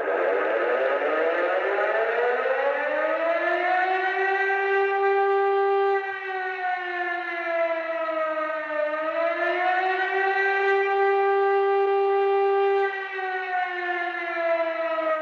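Emergency-alert civil defense siren winding up in pitch over the first few seconds, then holding a steady wail. Its pitch dips briefly about midway and rises back, sags slightly near the end, and the siren cuts off suddenly.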